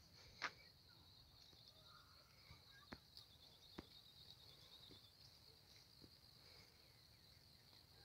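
Faint, steady, high-pitched insect chirring in rural scrubland, with a few soft clicks, the loudest about half a second in, and a couple of brief faint bird chirps.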